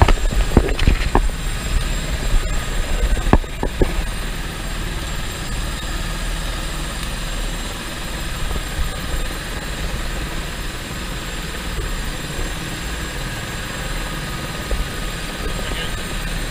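Helicopter running on the landing pad with its main rotor turning, heard from inside the cabin: a steady low rumble with a thin high whine above it. A few sharp knocks and clunks come in the first four seconds.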